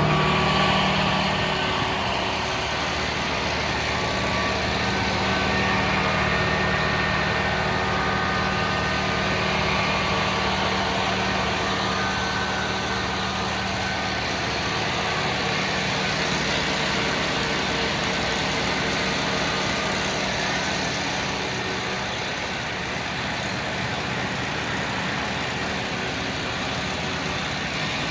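Tractor engine running steadily while driving a Massey Ferguson RB3130F Protec combination round baler and wrapper, with a continuous even machinery hum.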